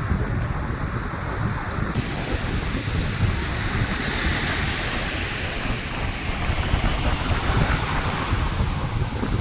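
Sea surf washing onto a beach, its hiss swelling from about two seconds in, under a steady rumble of wind buffeting the microphone.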